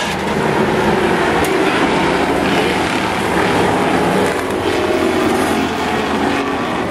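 Engines of demolition race cars running around a short oval track, heard from the grandstand as a steady, dense din.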